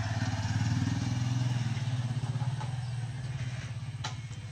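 Motorcycle riding past at low speed, its engine running with a steady pulse that swells in the first second or so and then fades as it moves away. A single sharp click sounds near the end.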